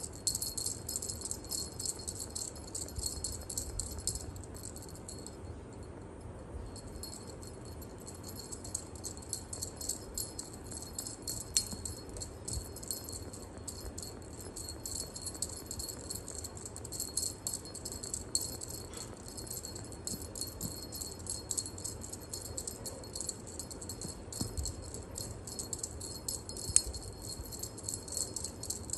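Jingling cat wand toy shaken and batted by a kitten: a fast, continuous high-pitched jingle and rattle that lets up briefly about five seconds in, with a few sharper clicks.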